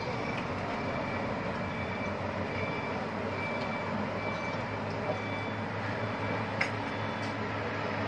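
Cars and SUVs passing on a mountain road: a steady mix of engine and tyre noise, with a faint high note repeating in short dashes behind it.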